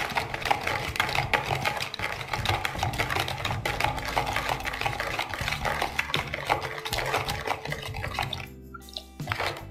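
Metal spoon stirring a liquid yogurt and gelatin mixture in a ceramic bowl: rapid scraping and clinking against the bowl with liquid swishing, to dissolve the sugar. The stirring fades about eight seconds in.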